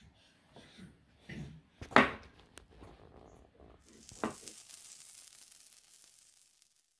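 A small turned wooden box knocked against a wooden tabletop several times, the loudest knock about two seconds in and another a couple of seconds later. Then a faint high hiss that fades away.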